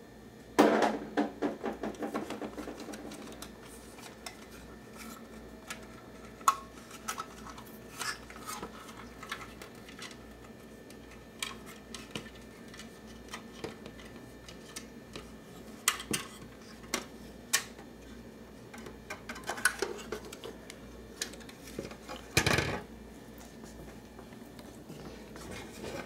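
Plastic clicks, knocks and rattles as a GE refrigerator's dispenser housing and control panel are handled and worked out of the freezer door: a clattering run about half a second in, scattered clicks after it, and a louder knock a few seconds before the end.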